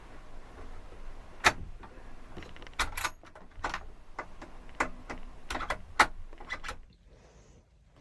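A series of about a dozen sharp clicks and knocks over some five seconds, the loudest about a second and a half in and again about six seconds in, then it goes quiet.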